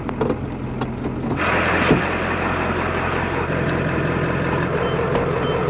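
Diesel truck engine idling steadily, starting loud about a second and a half in after a quieter stretch with a few light clicks. One sharp click comes near the two-second mark.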